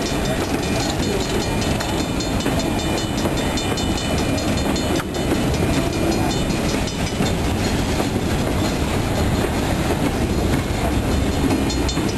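New England Central freight train's boxcars rolling past close by: a steady rumble and clatter of steel wheels on the rails.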